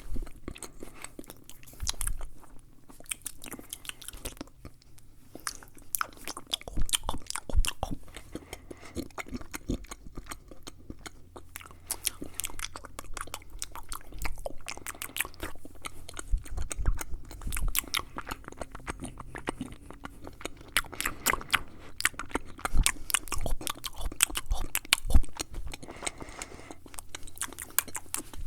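Close-miked ASMR mouth sounds at a fast, aggressive pace: a dense run of rapid wet clicks, smacks and tongue noises.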